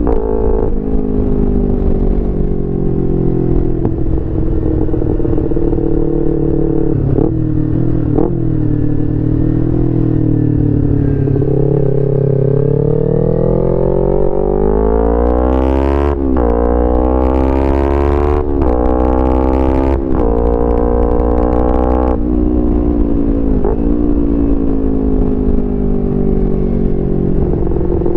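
2011 Kawasaki Ninja 250R's parallel-twin engine through a full Graves racing exhaust, cruising and then accelerating. The pitch climbs steadily, then drops and climbs again several times as the rider shifts up through the gears, and settles back to an even cruise near the end.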